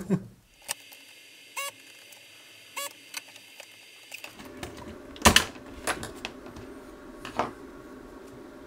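Sharp clicks and knocks of tools working on a circuit board while the old fuse is desoldered, the early ones with a short metallic ring. A steady low hum starts a little under halfway through and runs on under further clicks.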